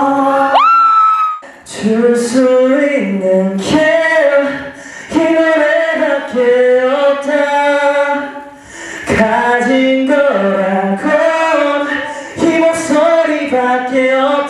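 A young man singing live into a handheld microphone, unaccompanied, in phrases that move up and down in pitch. About half a second in, his voice slides up to a high held note.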